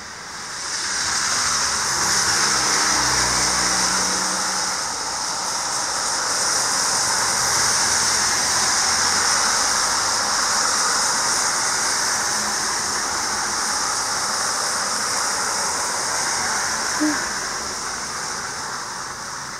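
Car tyres hissing through wet slush on a snowy road as cars pass. It is a steady wet hiss, with a low engine rumble a few seconds in.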